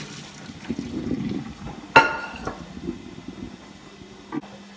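Hot water and parboiled chicken pieces poured from a pot into a stainless steel mesh colander in a metal sink, splashing, with one sharp ringing metal clang about two seconds in and a smaller knock near the end. This is the draining of the first boil, which takes away the chicken's raw smell.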